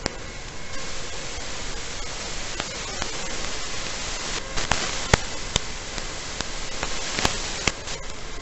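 Steady static hiss from an analog FPV video link's audio channel, recorded in EV800D goggles, with a few sharp crackling pops in the second half.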